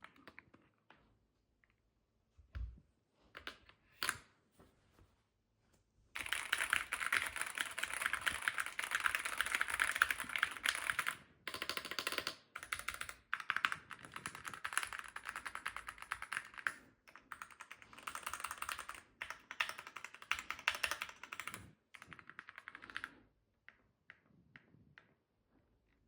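Typing on a Keychron Q1 HE aluminium keyboard with Gateron double-rail magnetic switches and OSA double-shot keycaps. A few scattered keystrokes give way, about six seconds in, to fast continuous typing. This lasts about seventeen seconds, then drops back to occasional keystrokes near the end.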